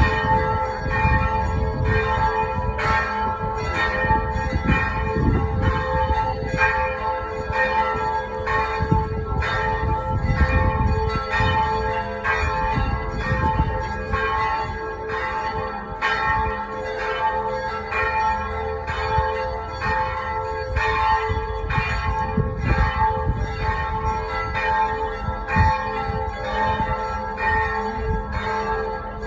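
Church bells of Split Cathedral pealing, struck about once a second throughout, their tones ringing on and overlapping between strokes.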